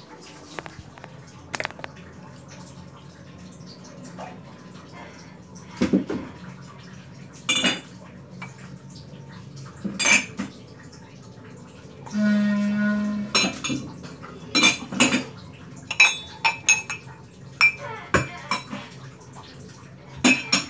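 Glasses and dishes clinking and knocking as they are handled and set in place, with a dozen or so sharp clinks mostly in the second half. Near the middle, a steady pitched tone lasts about a second.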